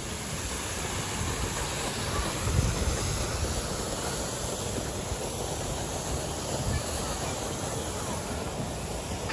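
Steady rushing outdoor noise with an uneven low rumble of wind buffeting the microphone, strongest about two and a half seconds in.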